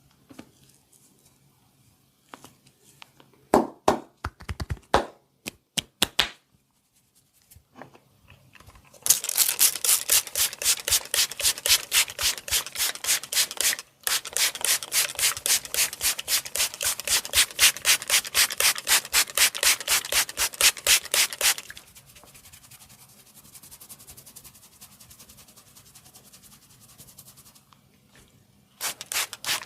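Massage hands rubbing briskly: a few scattered rubs at first, then a fast, even run of about four strokes a second for some twelve seconds. After that the rubbing is fainter, and a few louder strokes come near the end.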